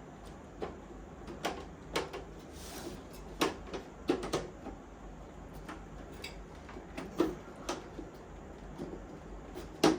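Irregular knocks and clicks of a 3D-printed plastic fan bracket being pushed and worked into place in a server case, about a dozen in all, with the loudest knock near the end.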